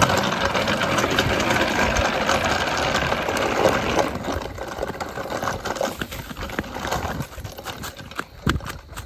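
A kid's drift trike's wheels skidding and rumbling across hard ground in a loud, rough rattle. The noise drops off about four seconds in as the trike rolls away onto grass, leaving lighter clicks and rattles.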